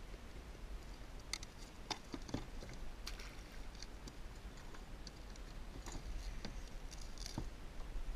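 Scattered light clicks and rattles, a dozen or so at irregular intervals, as hands handle a netted lobster trap, over a low steady rumble.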